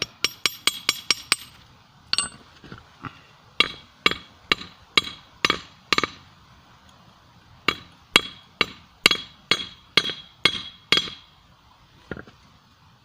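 Hammer blows on a hot steel screw blade over a small 25 lb anvil, each with a short metallic ring. A quick run of light taps opens, then steady blows about two a second, a pause of a second or two, and a second run of blows, ending in a few lighter taps.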